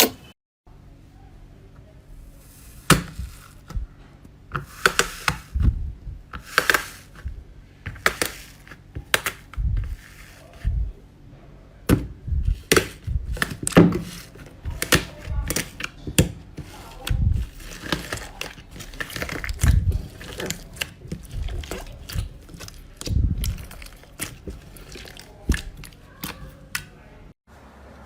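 Slime being pressed and worked by hand: irregular clicking and popping, with soft low thumps now and then.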